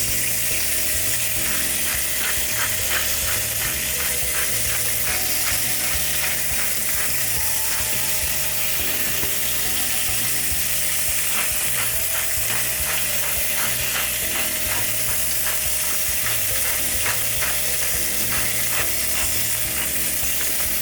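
Chicken breast sizzling steadily in a very hot grill pan, with several bursts of rapid clicking, about three or four clicks a second.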